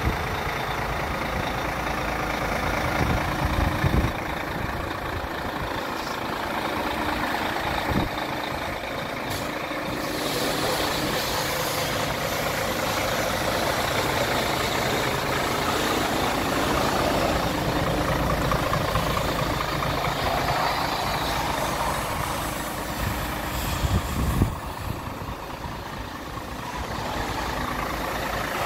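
Iveco Stralis 440S50 tractor unit's 500 hp six-cylinder diesel idling steadily. A few short thumps come about 4 seconds in and again late on.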